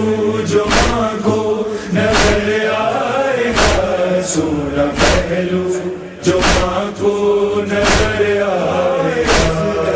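Chorus of voices chanting a slow lament melody between verses of a noha, over a steady beat struck about once every second and a half.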